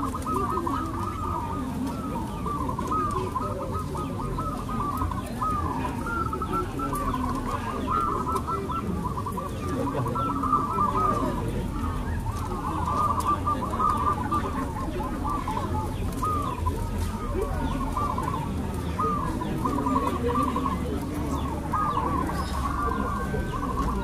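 A chorus of many caged zebra doves (perkutut) cooing at once. Their short, arching coos overlap in an unbroken stream over a steady low background noise.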